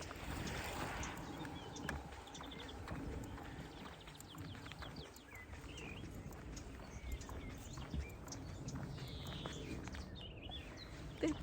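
Footsteps of a person walking along an outdoor path, with a few faint high chirps now and then.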